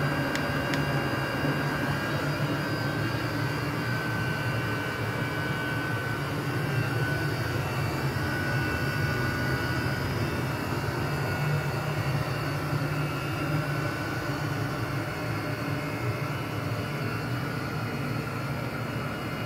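Diesel air heater running hard: a steady rushing noise of its blower and burner with a thin, steady whine. A few clicks right at the start as its control-panel buttons are pressed to turn it down.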